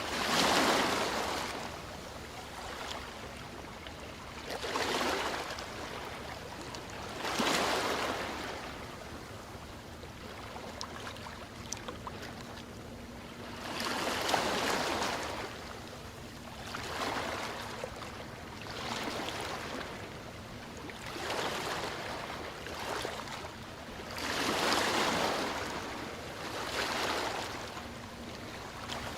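Ocean waves washing in, a steady rush that swells and fades every few seconds, with about nine surges.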